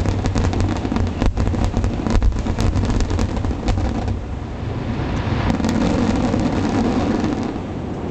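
Aerial fireworks going off in quick succession: a dense, continuous low rumble of booms with many sharp crackling cracks over the first half, the cracks thinning out in the second half.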